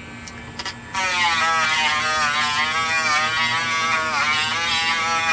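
Dremel rotary tool with a stone bit grinding down the fuel cap's plastic threads, which have swollen from ethanol in the gasoline. The high whine is faint for about the first second, then comes back strong, its pitch wavering as the bit bears on the plastic.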